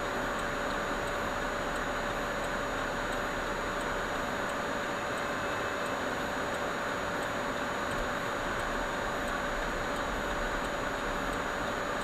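Steady cabin noise from a car waiting in traffic, picked up by a dashcam's built-in microphone: an even hiss with a constant electrical whine and faint regular ticking about twice a second.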